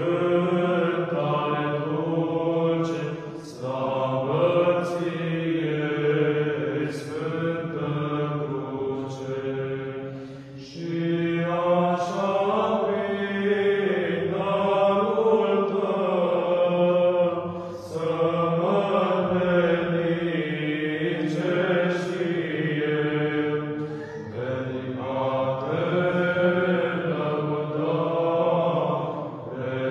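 Small choir of male voices singing Orthodox church chant a cappella, a moving melody over a steady low held drone, with brief breath pauses twice.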